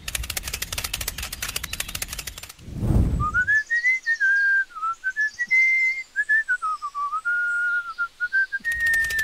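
A whistled tune: a single pure note gliding up and down as a meandering melody for several seconds. It is preceded by a fast rattle of rapid clicks lasting about two and a half seconds and a short low whoosh, and the rapid clicking comes back near the end under the whistling.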